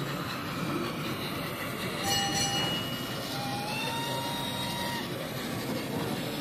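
Steady background hubbub of an exhibition hall, with two thin whistle-like tones: one short about two seconds in, then a slightly higher, longer one a little later.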